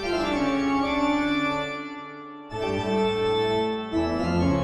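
Organ music playing long held chords, with a new chord about two and a half seconds in and another near the end.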